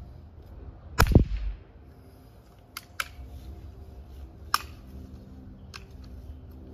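A Winchester Model 1977XS multi-pump .177 air rifle fires a single pellet on ten pumps: one sharp crack about a second in. A few faint clicks follow over the next few seconds.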